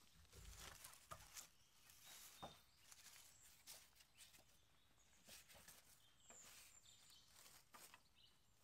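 Near silence: faint woodland ambience with scattered soft knocks and rustles as a wooden pole is handled, a dull low thump in the first second, and a few brief high bird chirps.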